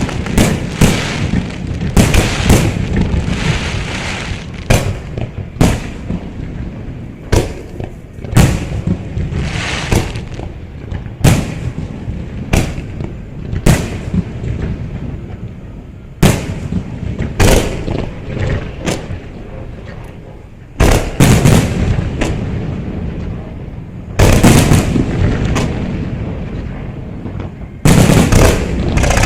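Aerial fireworks show: shells bursting in a long run of sharp booms, about one a second, over continuous crackling. The barrage grows denser and louder about two-thirds of the way through and again near the end.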